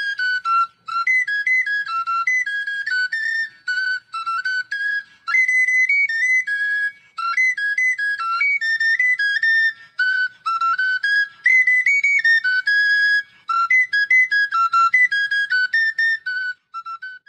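Unaccompanied intro music: a single high, pure, flute-like melody of short stepping notes, played in phrases with brief pauses between them.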